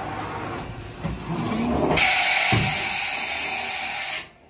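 Mori-Seiki NH 5000 DCG horizontal machining center during an automatic tool change: machine motion with short rising whirs, then a loud steady hiss for about two seconds that cuts off suddenly.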